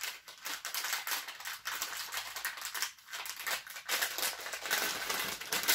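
Plastic packaging and packing tape crinkling and rustling as they are handled, with many small irregular clicks.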